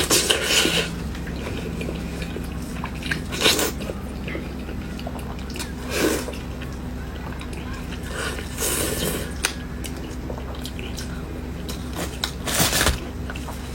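Close-miked eating: a person biting into and chewing pork knuckle, with about five louder bites or mouthfuls a few seconds apart, over a low steady hum.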